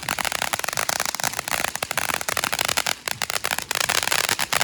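A firework going off in a rapid, unbroken run of sharp pops and crackles, many per second, with a steady fizzing hiss beneath them.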